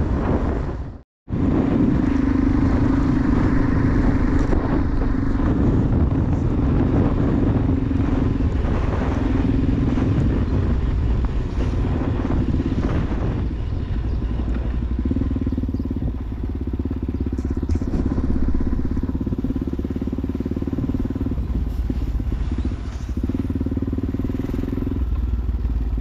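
Dirt bike engine running under way at road speed, with a broad rush of wind and road noise. The sound cuts out briefly about a second in, then the engine tone comes and goes in stretches as the throttle changes.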